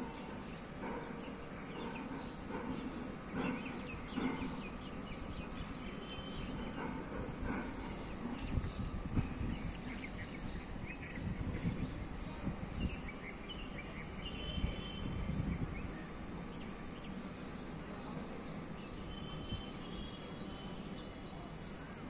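Birds chirping and calling, many short calls scattered throughout over a steady background noise of the surroundings, with a low rumble on the microphone in the middle stretch.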